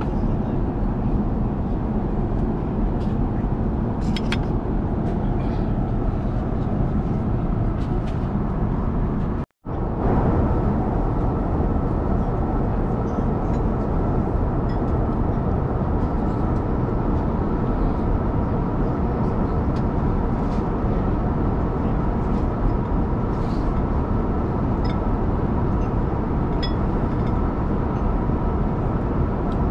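Steady vehicle noise: an even low rumble with faint steady higher tones and a few small clicks, broken by a brief drop to silence about ten seconds in.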